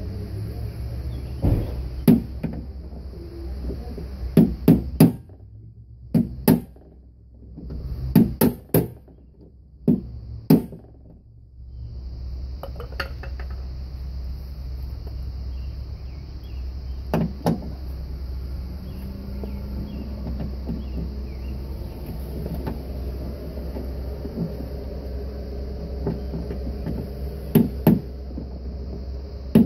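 Hammer blows on a hand impact driver, breaking loose the tight latch screws in a car door's edge. Sharp metallic strikes come in clusters of two or three, with pauses of several seconds between them, over a steady low hum.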